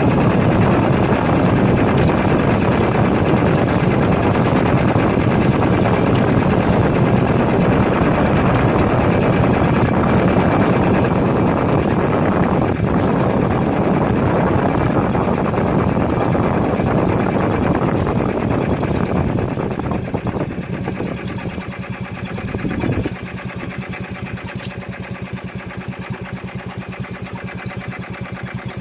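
Outrigger fishing boat's engine running steadily under way, then throttled back about twenty seconds in, with a short surge before it settles to a quieter, even idle.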